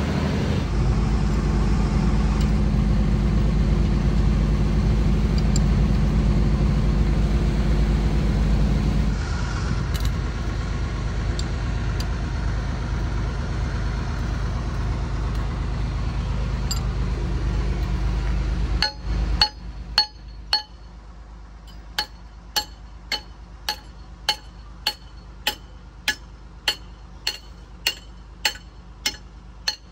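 A steady low engine drone that fades after about nine seconds. Then, for the last third, sharp metallic clicks at an even pace of just under two a second from a hand wrench being worked on the excavator wheel hub's bolts.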